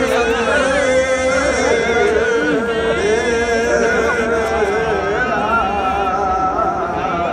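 Many voices singing a chant-like religious song together, with a long held note underneath and the murmur of a large crowd.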